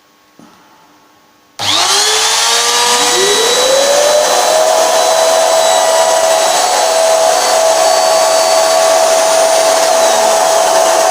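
Electric wood router switched on about a second and a half in, spinning up with a rising whine and then running at a steady high speed.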